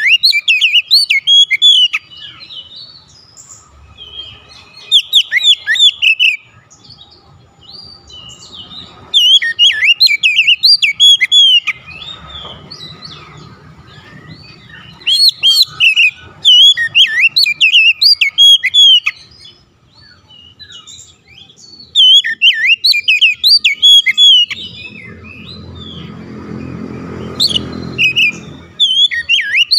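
Oriental magpie-robin singing in bursts of quick, varied whistles and chirps, phrase after phrase with short pauses between. A low rumble sits under the song near the end.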